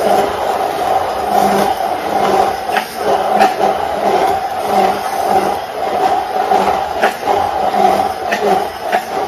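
Handheld stick blender running steadily in a tall jug, puréeing a thick yogurt-and-spice marinade, with occasional clicks as the blade churns. It cuts off at the very end.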